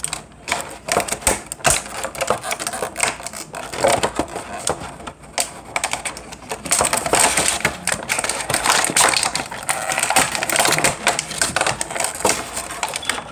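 Stiff clear plastic toy packaging crackling and clicking as it is handled and pried apart, a run of quick crackles and snaps.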